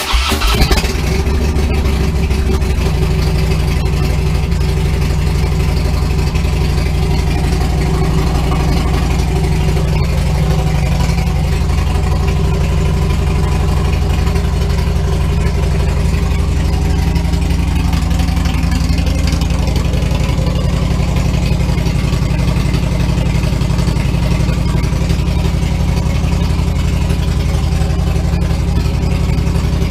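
Harley-Davidson Twin Cam 103 V-twin, fitted with a TBR Comp-S 2-into-1 exhaust and an Arlen Ness Monster Sucker air cleaner, starting up on its freshly flashed tune. It catches right at the start and settles into a steady, loud idle.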